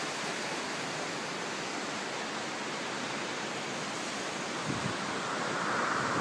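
Steady rushing of a mountain creek running over rocks, an even hiss with no changes.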